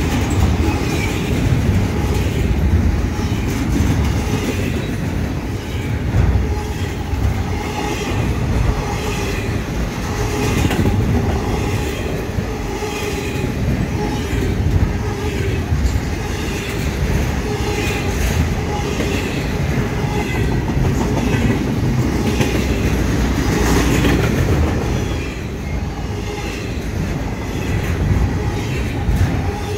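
A freight train's intermodal container and trailer cars rolling past at close range, the wheels clicking steadily over the rail joints. The sound eases somewhat in the last few seconds.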